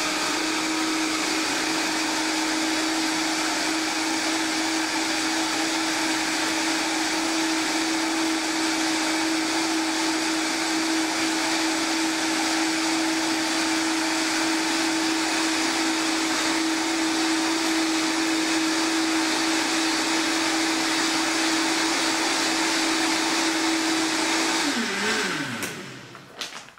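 Vitamix high-powered blender running at a steady high speed, blending cacao powder into a liquid smoothie base for about 25 seconds. It then spins down with a falling pitch near the end.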